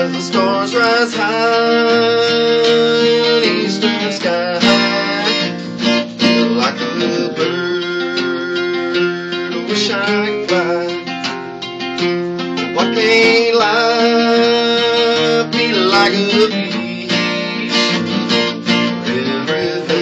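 An acoustic guitar and a resonator guitar playing an instrumental tune together: plucked and strummed notes, with some notes held for a second or two.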